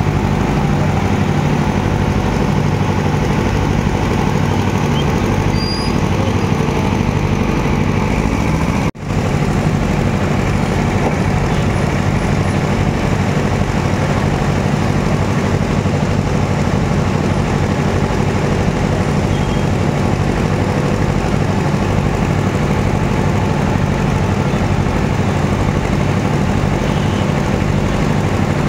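A motor vehicle engine running steadily at close range, a low continuous hum, with a brief break about nine seconds in.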